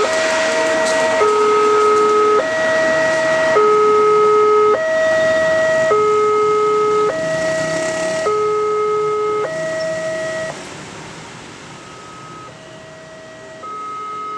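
Railway level-crossing warning alarm sounding a two-tone electronic signal, a higher and a lower tone taking turns about every 1.2 seconds, while a train runs past under it at first. The alarm stops a little past two-thirds of the way through, and the same kind of alarm starts again quietly and grows louder near the end.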